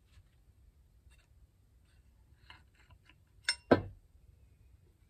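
Metal parts of a Ford Model A oil pump being handled during disassembly: faint ticks and scrapes, then two sharp metallic clinks in quick succession about three and a half seconds in, the second louder and ringing.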